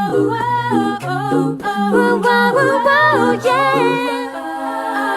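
A cappella singing in several voices in harmony, a low bass line moving under higher voices, settling into a held chord near the end.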